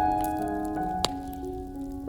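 Slow ambient meditation music with long held notes, over a campfire crackling, with a sharp pop about a second in.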